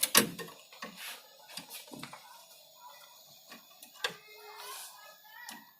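Scattered clicks and light metallic taps from a screwdriver working at the screws that hold a laser printer's main circuit board. There is a sharp click at the start and another about four seconds in.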